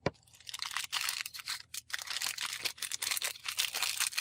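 Ube butter slime being squished and kneaded by hand, making a dense run of crackling, popping clicks, with a soft knock at the very start.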